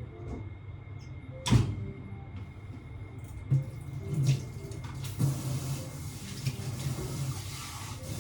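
A sharp knock about a second and a half in, a few lighter knocks, then water starts running from a tap about five seconds in and keeps running.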